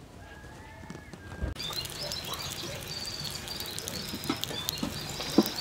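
Flatbread frying in a pan of hot oil, crackling and spitting, with birds chirping in the background. The crackling starts abruptly about a second and a half in, after a quieter stretch holding one faint drawn-out animal call.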